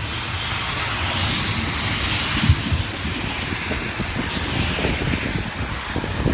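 Rain and wind during a thunderstorm, with gusts buffeting the microphone; a hiss swells and then eases off in the first few seconds.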